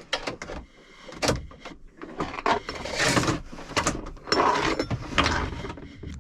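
Metal clicks, knocks and scraping as a new push-pull shift/throttle cable is worked into the mechanism of an Edson steering pedestal, with longer rough scrapes about halfway through.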